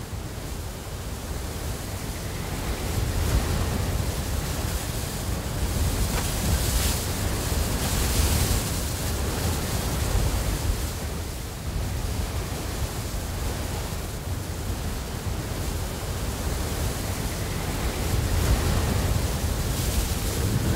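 A steady rushing noise with no tone in it, swelling and easing slowly every few seconds, strongest at the low end.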